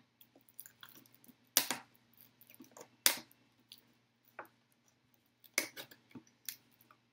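A tough plastic bottle being cut open by hand: sharp cracks and crinkles of the stiff plastic, three loudest about a second and a half apart, with smaller ticks between.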